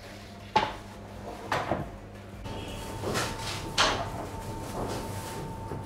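Four sharp knocks and clacks of kitchen work, spread about a second apart, over a steady low hum; a faint steady tone comes in about halfway.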